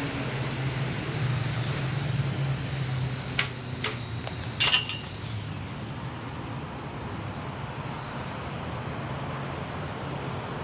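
Steady low outdoor hum, like distant traffic, with a few sharp clicks and clinks about three and a half to five seconds in, the last one the loudest.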